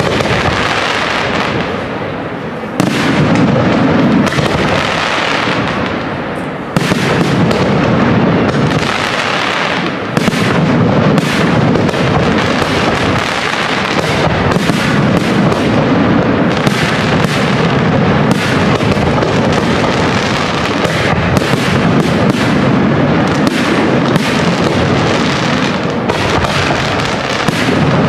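Large aerial fireworks display: a dense barrage of shell bursts, overlapping into a nearly continuous din, with new volleys starting abruptly about 3 and 7 seconds in.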